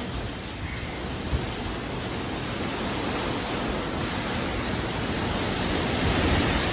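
Hurricane wind and heavy rain: a steady rush of noise with low buffeting from the gusts.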